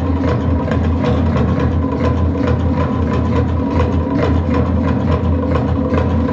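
Polynesian drums playing a fast, even beat, about four to five strokes a second, with a heavy low rumble underneath, accompanying a traditional dance.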